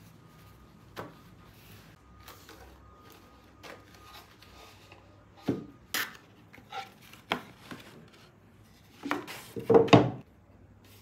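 Household items being handled and set down: scattered knocks, taps and rubbing of wood and dishware, with a louder quick run of knocks near the end.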